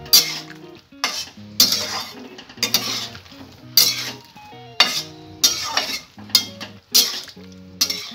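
A metal spatula scraping and clinking against a metal kadai as potatoes and chhena fritters are stirred in gravy, about one stroke a second, over background music.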